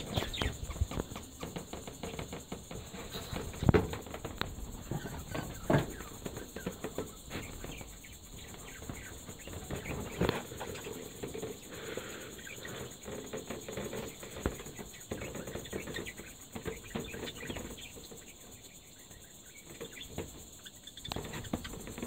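A flock of budgerigars chattering: a continuous stream of quick chirps and clicks, with a few louder calls about four, six and ten seconds in. A steady high hiss lies under them.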